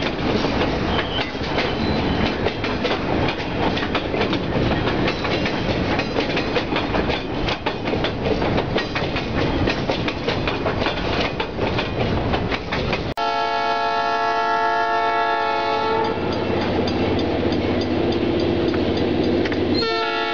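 Freight cars rolling past on the rails, with a rapid clickety-clack of wheels over rail joints. About thirteen seconds in, the sound switches abruptly to an EMD GP38 diesel locomotive's air horn sounding long blasts as the train approaches.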